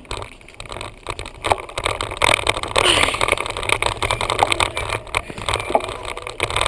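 Wind rushing over the microphone of a bike-mounted camera, with low rumble and frequent small knocks and rattles from the mount as the bicycle rides along.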